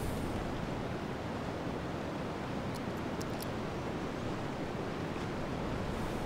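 Steady winter wind blowing, an even rushing noise without gusts, with a few faint high clicks about three seconds in.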